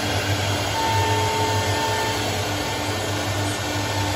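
CNC router spindle cutting grooves in a wooden board while the dust extraction draws chips through its hose: a steady whirring with a low hum and a faint high whine.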